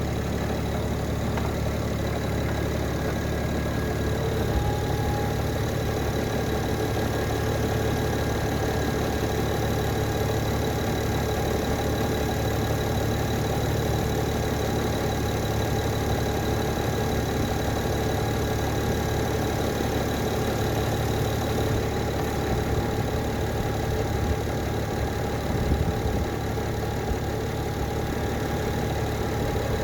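Car engine idling steadily, with a steady high whine from a connected battery charger over it. The owner says the engine has a blown head gasket.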